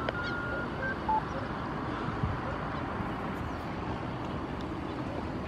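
Steady rushing background noise of an airport apron around a parked airliner being serviced. A few short, steady beeps at different pitches sound in the first second or so.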